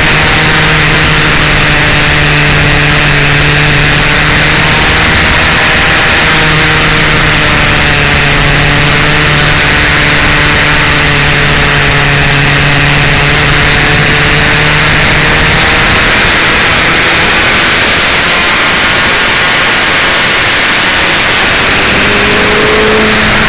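Heavy wind roar on the microphone of a camera riding on a sport motorcycle at road speed, with the bike's engine droning steadily underneath. The engine note sits higher near the end as the bike speeds up.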